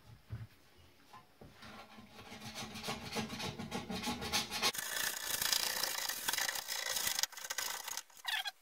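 A blade scraping sticky double-sided-tape adhesive residue off an aluminium saw guide rail in quick repeated strokes. The scraping grows louder from about two seconds in and is loudest over the second half, with a couple of short pauses near the end.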